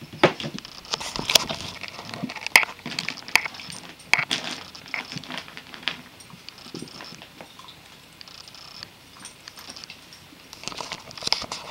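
A small dog and a Doberman play-wrestling: a run of short, sharp scuffling and mouthing sounds, busiest in the first few seconds and again near the end.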